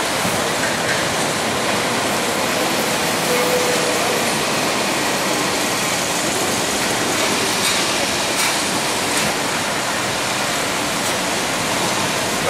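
Steady, loud hiss of street ambience with a vintage tram moving through it, a faint brief squeal about three seconds in and a few light clicks in the second half.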